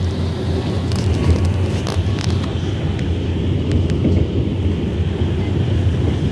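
Wuppertal Schwebebahn suspended monorail car running along its overhead rail, heard inside the cabin: a steady low rumble, with a few faint clicks one to two seconds in.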